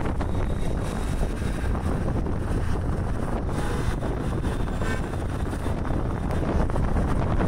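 Wind rushing over the microphone with steady engine and road rumble from a moving auto rickshaw in traffic.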